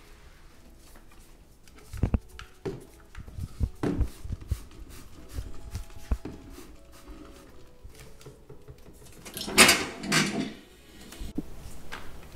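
Flat microfiber mop knocking and bumping on a hardwood floor, then two quick sprays from a trigger spray bottle of floor cleaner a little under ten seconds in.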